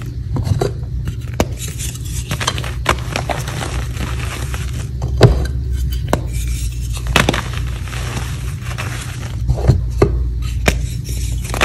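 Hands crushing and crumbling dyed gym chalk reforms and loose chalk powder: a run of dry crunches and sharp snaps, the loudest about five seconds in.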